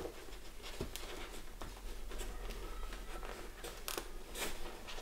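Hands handling and pressing a fabric-covered foam helmet cheek pad and its strap into place: soft scratchy rustling with many small clicks, and a few louder rustles near the end.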